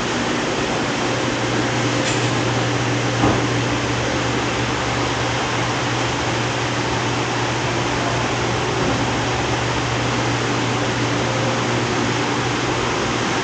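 Steady store background noise: a constant low hum and even hiss from ventilation and refrigeration equipment, with one brief knock about three seconds in.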